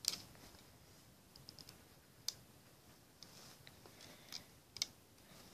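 Faint, scattered clicks and taps of fingers working rubber bands over the clear plastic pegs of a Rainbow Loom. The sharpest click comes right at the start, and a quick double click comes near the end.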